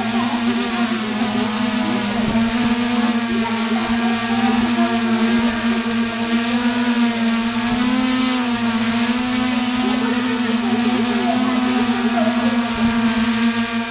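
Quadcopter drone's motors and propellers running, heard from the drone's own camera: a steady hum with a thin high whine above it, the pitch wavering slightly as it descends.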